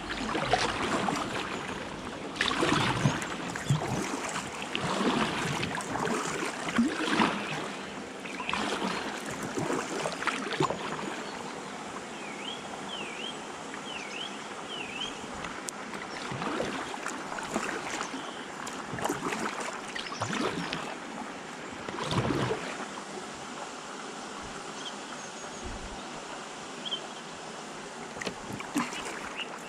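Kayak paddle blades dipping and pulling through calm river water, a splash about once a second. The strokes pause a little under halfway, while a bird gives four quick chirps, then resume at a slower pace.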